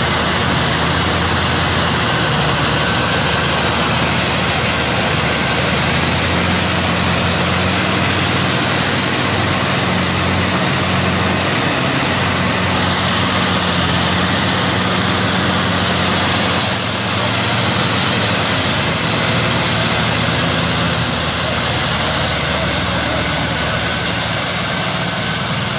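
Tractor diesel engines running hard under heavy load while chained together to tow a Massey Ferguson 8450 bogged down in deep mud. The engine note is steady and steps up a little about six seconds in.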